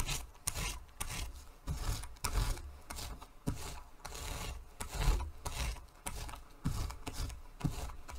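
Small hand paint roller rolled back and forth over fabric laid on a textured print plate: a repeated rasping rub, about two strokes a second, with low thuds as it is pressed down.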